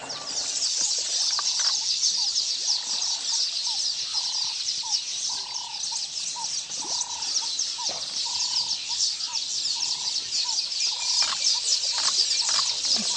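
Wild outdoor ambience: a dense, high chirping chorus of small creatures, with a short mid-pitched call repeated over and over, about once or twice a second.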